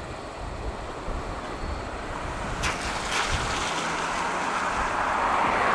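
Freight train of autorack cars rolling away down the track, a steady rumble of wheels on rail. A couple of sharp clicks come about halfway through, and a hiss builds and grows louder toward the end.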